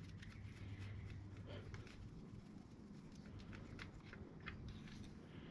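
Faint light ticks and rubbing as the plastic transmission fill plug (dipstick) of a Harley-Davidson Milwaukee-Eight Softail is spun out of its threads by hand, over a low steady hum.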